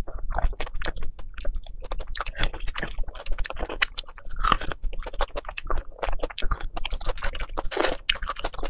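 Close-miked chewing and biting of someone eating roasted marrow bones in sauce, tearing the meat and gristle off the bone: a dense, irregular run of wet mouth clicks.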